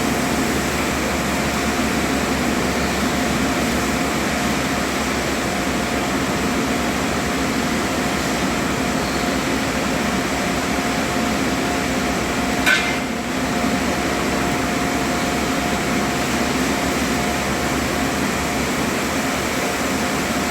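Steady machine-like hum and hiss that keeps an even level throughout, with a single sharp click about 13 seconds in.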